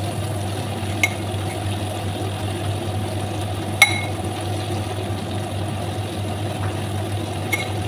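Breaded chicken skin deep-frying in a pan of hot oil, a steady sizzling and bubbling over a low hum. Three light clinks cut through it, the loudest about four seconds in.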